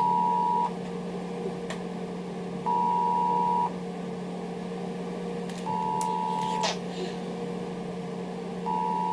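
Ringback tone of an outgoing phone call heard through a phone's speaker: a steady beep about a second long, repeating every three seconds over a low hum, as the call rings unanswered.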